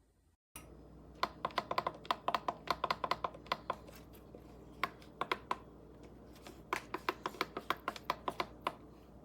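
Rapid, irregular clicking in quick clusters with short pauses, over a steady low hum. It starts abruptly about half a second in and cuts off just as abruptly near the end.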